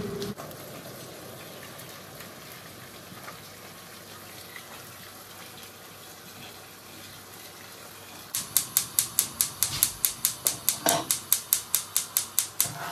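Boiled water poured from a kettle over pasta in a saucepan, a soft steady gush. About eight seconds in, a gas hob's spark igniter clicks rapidly and evenly, about five clicks a second for about four seconds, as the burner under the saucepan is lit.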